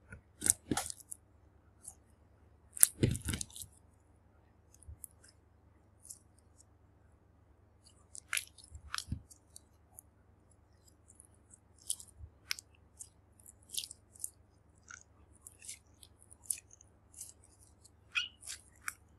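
Clear slime being squeezed and stretched by hand, giving scattered small clicks and pops, with louder clusters about half a second in and again about three seconds in.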